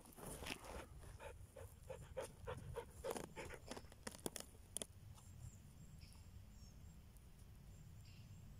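A dog panting quickly, about three breaths a second, in the first few seconds. Sharp clicks and rustling of dry needles and twigs come with it as a porcini is cut and worked loose from the forest floor. After about five seconds only faint rustling remains.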